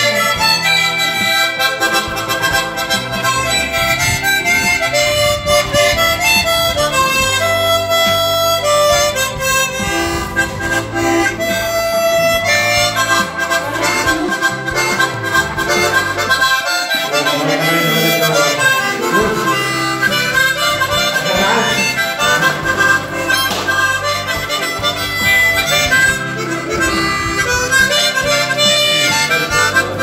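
Harmonica playing a continuous tune with chords, the notes wavering in places.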